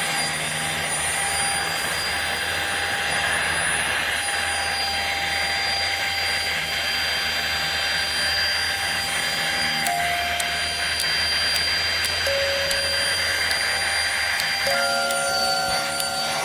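Deerma CM800 handheld mite vacuum cleaner running steadily: a loud rush of air with a high motor whine, the whine shifting pitch a few times in the last several seconds.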